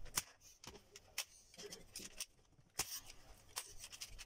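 A few faint, scattered clicks and light rustling from an electric staple gun being handled against upholstery fabric on a chair seat. The gun keeps jamming.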